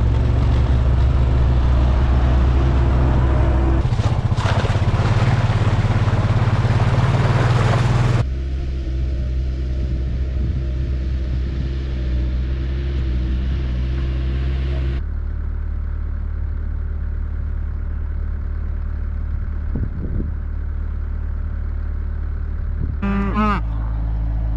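Vehicle engine running steadily, loudest in the first eight seconds, then quieter with a change in its tone about fifteen seconds in. A cow moos near the end.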